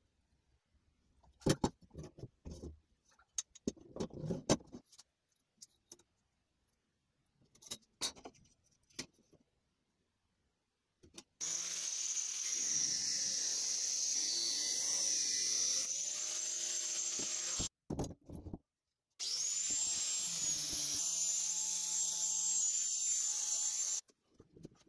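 Electric angle grinder with a cut-off disc, held in a bench vise, cutting a steel strip in two steady runs of about six and five seconds, each starting and stopping abruptly. Before that, scattered knocks and clicks of the steel strip and vise being handled.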